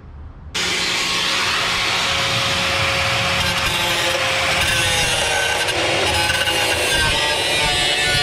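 Angle grinder grinding rusted steel: a loud, continuous grinding rush over a motor whine that wavers slightly as the disc bites. It starts abruptly about half a second in.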